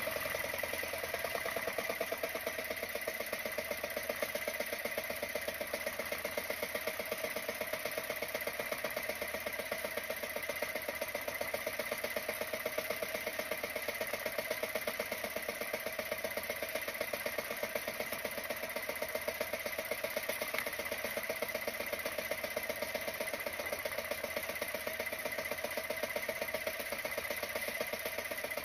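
Small outrigger boat's engine running steadily at constant speed while trolling, a fast, even putter.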